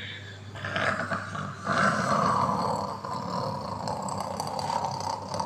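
A person in trance making a long, rasping, strained vocal noise, not words, lasting about four seconds after a short pause at the start.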